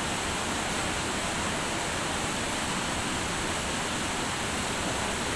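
Waterfall pouring into a rocky plunge pool: a steady, even rush of white water.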